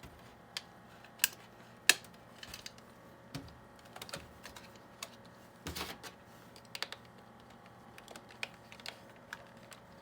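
Irregular small plastic clicks and taps as a rear licence plate holder is worked up into two tabs on a plastic RC truck body. The sharpest clicks come about one and two seconds in, with a short cluster of rattling taps about six seconds in.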